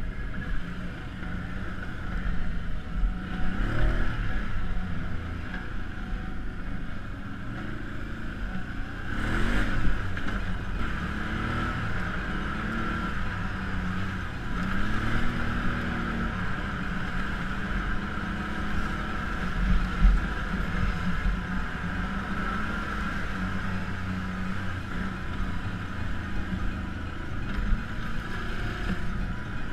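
Can-Am Outlander ATV engine under way, its pitch rising and falling several times as the throttle is opened and eased off. There is a brief burst of noise about nine seconds in.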